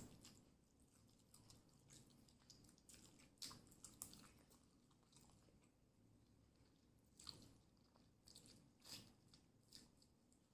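A person chewing food close to the microphone: faint, scattered crunchy and wet mouth sounds that come in small clusters, a little louder about a third of the way in and again past the middle.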